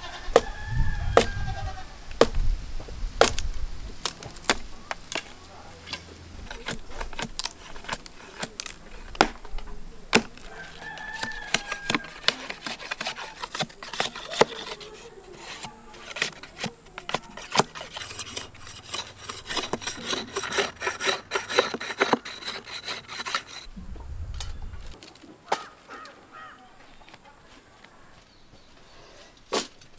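Large knife chopping and shaving a bamboo stick: a run of sharp cracking and scraping strokes of the blade on the bamboo. Chicken calls sound now and then in the background.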